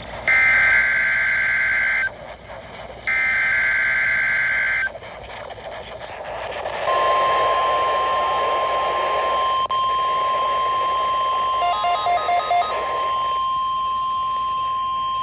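NOAA Weather Radio Required Weekly Test over a hissy, weak signal: two bursts of warbling two-tone SAME digital header data, then a steady 1050 Hz warning alarm tone that starts about seven seconds in and holds to the end. There is a short patch of beeping over the tone about twelve seconds in.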